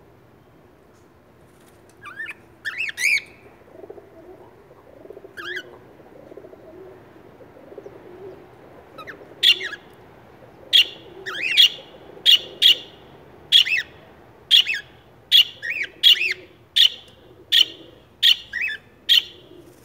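Cockatiels calling: a few scattered chirps in the first seconds, then from about halfway a steady series of sharp, repeated chirps at roughly two a second.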